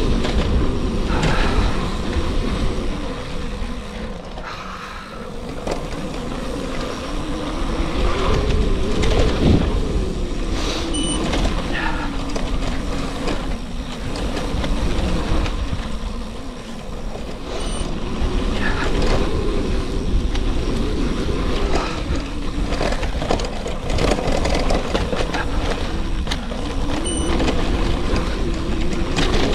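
Wind rushing over the microphone with tyre noise from a gravel bike rolling along, with a hum that rises and falls with speed.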